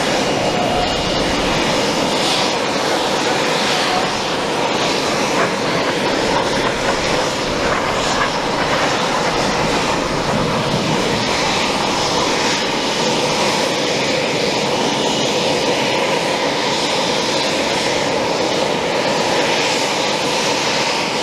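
Eurofighter Typhoon jet engines running at ground idle while taxiing, a steady loud jet noise with a high whine over it.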